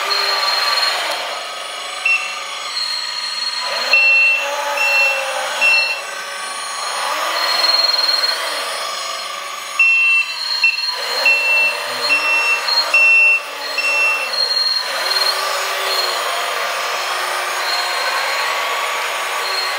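LESU AT60H 1/16 RC articulated dump truck driving: its sound module plays an engine note that revs up and down with the throttle, and reversing beeps sound in two runs, about four seconds in and again around ten to fourteen seconds. A steady high whine from the running hydraulic pump and drive carries on underneath.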